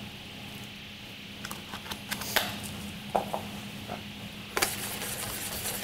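Scattered light clicks and knocks of a spice container and utensils being handled and set down on a kitchen counter. A little over four seconds in, a sharper knock and then a steady scraping hiss of food being stirred begin.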